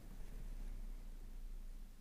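Faint, steady low hum of room tone, with no distinct sounds.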